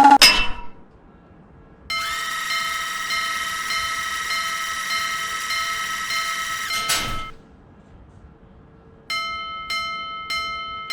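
Japanese level-crossing warning bell in a cartoon soundtrack: a sustained ringing tone with hiss for about five seconds that ends in a falling sweep, then, after a short pause, the bell's repeated clanging strikes ("kan kan"), about two a second.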